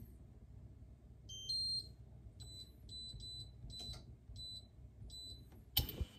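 Electronic beeps from a stove's touch-control panel: a short chime of a few tones about a second in, then about seven single high beeps as the controls are pressed. A sharp knock near the end is the loudest sound.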